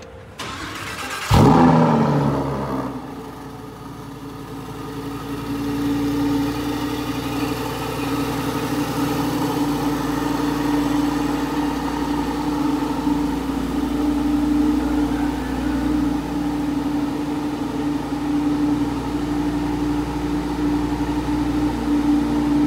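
Lamborghini Huracán Spider's V10 starting: it catches about a second in with a loud flare that dies away, then settles into a steady cold-start idle.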